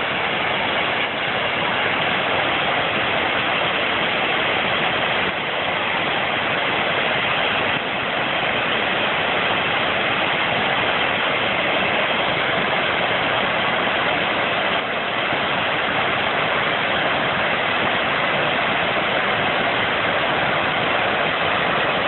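Harajiri Falls, a broad waterfall of several cascades, rushing steadily into its plunge pool: an even, unbroken noise of falling water.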